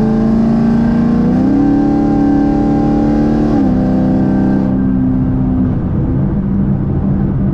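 E85-tuned 6th-gen Camaro 1LE's engine and exhaust heard from inside the cabin, holding a steady high note that steps up slightly about a second and a half in. The note then drops about three and a half seconds in and settles into a lower, steady drone.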